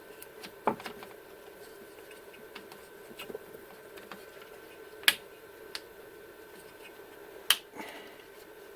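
Plastic cable drag chain links being handled and snapped closed: a few sharp clicks, the loudest about five and seven and a half seconds in, with small ticks between, over a faint steady hum.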